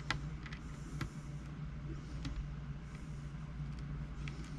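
A few small, sharp clicks of tiny screws and plastic laptop parts being handled during a screen removal, over a steady low hum.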